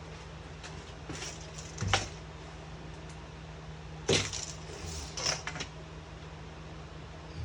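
Scattered knocks, clicks and light clatter of hands working on the shower base and its materials, with two sharper knocks about two and four seconds in, over a steady low hum.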